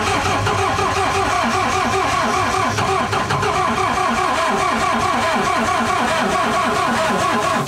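Diesel engine of an almost 30-year-old air compressor cranking on its electric starter in a steady, rhythmic churn for several seconds, then stopping suddenly without running. The owner suspects a weak battery that has sat uncharged for a long time.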